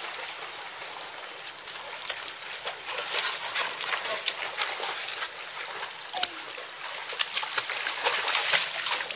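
Splashing of a child swimming front crawl in a pool: many short splashes from arm strokes and kicks, louder near the end as the swimmer comes close.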